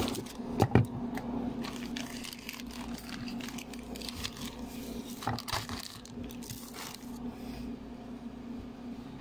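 Phone microphone handling noise: rubbing and knocks as the handheld phone moves against clothing and fingers, with the loudest bumps just under a second in and again about five seconds in, over a steady low hum.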